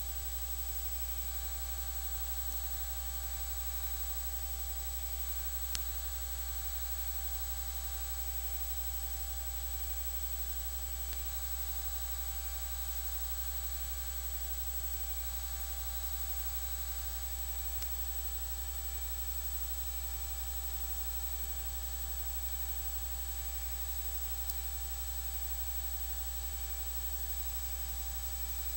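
Steady low electrical hum with a thin buzz and hiss over it, unchanging throughout; a faint click about six seconds in and another near the end.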